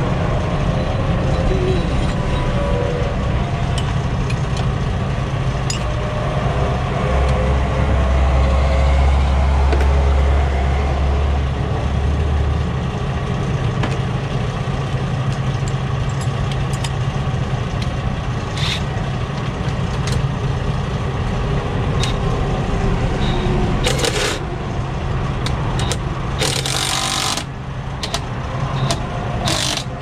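Diesel truck engine idling steadily, with scattered clicks from hand work on the truck and a hiss-like burst of about a second near the end.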